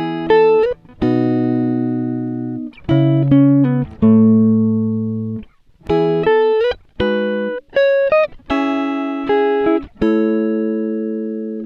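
Background music: a plucked guitar melody of single notes and chords, each ringing out and fading, with a few short slides between notes.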